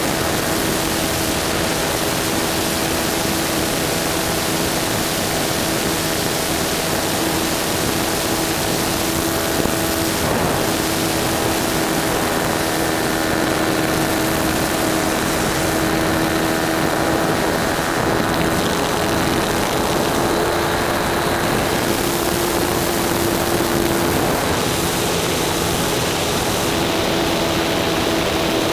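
120-size nitro (glow-fuel) model airplane engine running steadily at flying throttle with its propeller, heard close-up from a camera mounted just behind it, with wind rush over the airframe. Its pitch dips briefly about ten seconds in and shifts a little again near the end.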